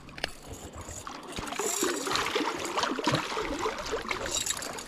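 Water splashing and trickling, with many small irregular splashes that grow louder a second or so in.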